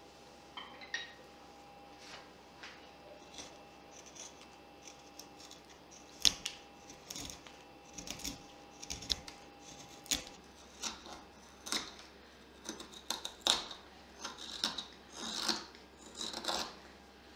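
Carving knife slicing shavings from a butternut block by hand: a string of short, crisp cuts at an irregular pace, sparse at first and coming faster from about six seconds in. A faint steady hum sits underneath.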